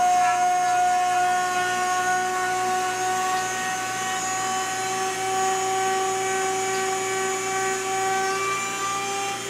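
Electric rotary tool spinning a small cutter in a rose engine cutting frame, running with a steady high whine as it cuts a wavy rosette pattern into the wood.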